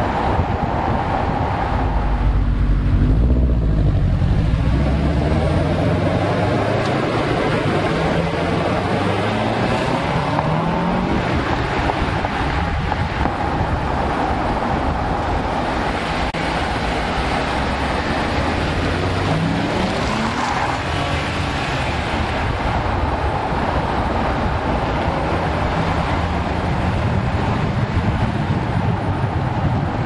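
2002 Audi S4's twin-turbo 2.7-litre V6 driving through the gears, its pitch rising and falling, loudest in a surge a couple of seconds in, over steady tyre and wind noise picked up by a camera mounted on the car's side.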